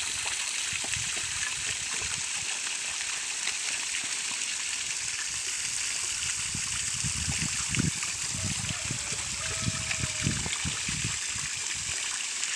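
Garden hose spraying water into a muddy wallow over wild boars, a steady hiss of running water. Heavier low splashes and thuds come in the second half.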